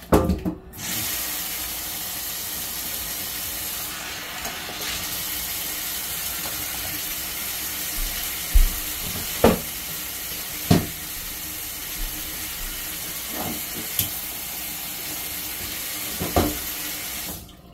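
Kitchen tap running steadily into the sink, with a handful of sharp knocks of things handled in the sink in the second half; the water is shut off just before the end.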